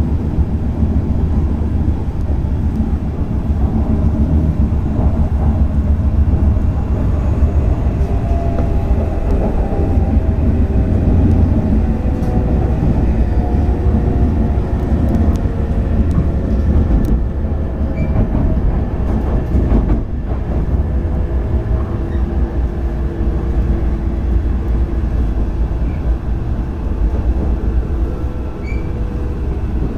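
Hayabusa shinkansen heard from inside the passenger cabin: a steady low running rumble, with a faint whine falling slowly in pitch as the train slows toward its station stop.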